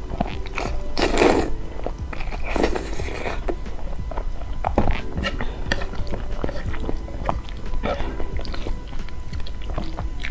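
Background music with a short repeating pattern of notes, over close-miked eating sounds of someone biting and chewing noodles. Two louder noisy bursts come about a second in and near three seconds in.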